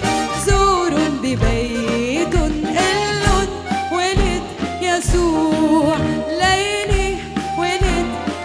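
A woman singing a Christmas medley into a microphone, her voice sliding through ornamented runs, over a pop backing track with a drum beat.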